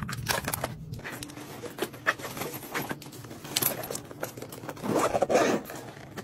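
Hands handling a padded fabric makeup bag and the cosmetics in it: small clicks, knocks and scrapes. About five seconds in comes a louder, brief rasp of the bag's zipper being pulled.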